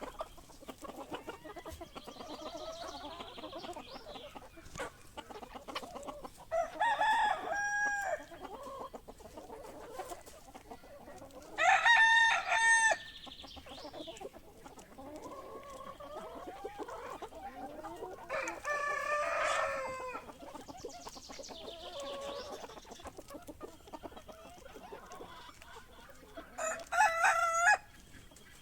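Roosters crowing four times, each crow a short run of loud pitched segments, over the steady clucking of a flock of chickens.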